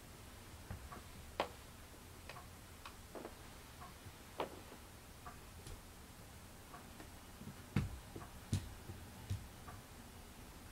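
Hands and fingertips touching a hard surface, giving scattered light taps and clicks at uneven intervals, with a few soft thumps about eight to nine seconds in.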